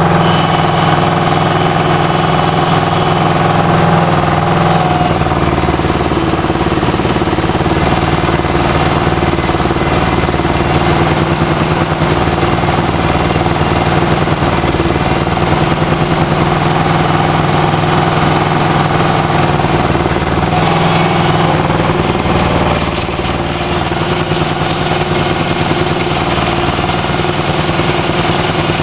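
Aquatic weed harvester's engine running steadily. Its note shifts a few seconds in, and again a little after twenty seconds in.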